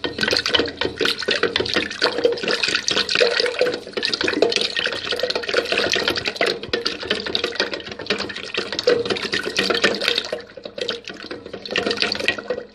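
Wooden hand churner (madhani) spun in yogurt and water in a steel jug: liquid sloshing and swishing, with rapid clattering clicks throughout. It eases off briefly about ten seconds in, then starts again.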